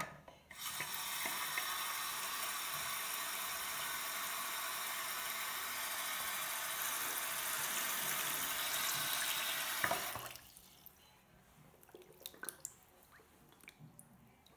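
Tap running, its stream pouring onto a waterproof sock lying in water to soak it, steady for about ten seconds, then shut off. Faint drips and small splashes follow near the end.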